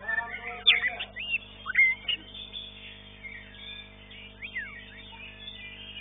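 White-rumped shama (murai batu) singing: short, sharp whistled notes that swoop up and down, loudest about a second in and again near the middle, over a steady low hum.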